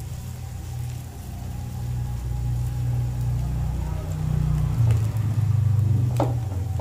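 A low, steady engine-like rumble that grows louder about five seconds in, over faint sizzling of fritters frying in oil in a steel pan. A light knock a little before the end.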